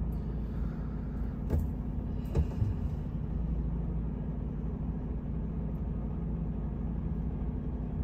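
Steady low drone of a 440-horsepower SITRAK truck tractor driving, engine and road noise heard inside the cab, with a few light knocks around two seconds in.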